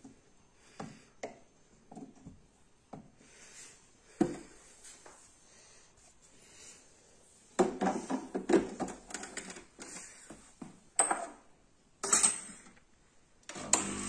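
Light metal clicks and knocks of a coffee tamper and stainless portafilter, then a dense clatter as the portafilter is fitted and twisted into the espresso machine's group head. Ceramic espresso cups knock twice onto the metal drip tray, and just before the end a steady hum starts.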